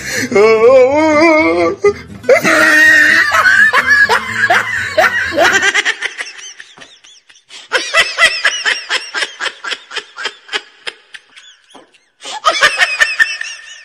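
Several bouts of loud laughter, quick rhythmic ha-ha pulses, with short lulls about two, seven and twelve seconds in.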